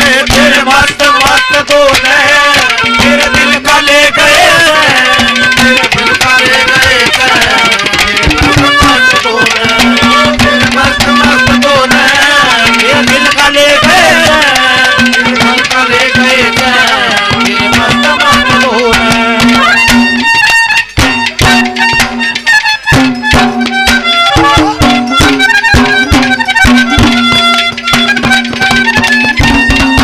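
Haryanvi ragni folk ensemble playing an instrumental interlude: a winding melody over a steady held drone note, with hand-drum beats. About twenty seconds in the melody thins out and sparser drum strokes and short phrases carry on.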